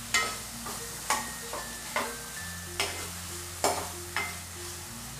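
A steel spoon stirring chopped onion and tomato frying in oil in a kadhai, knocking against the pan about once a second over a soft sizzle. Faint background music with low held notes underneath.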